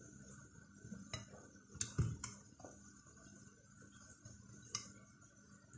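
Cutlery against a glass plate: a few short clinks and taps of a knife on the plate while a burger bun is cut open, with one louder knock about two seconds in.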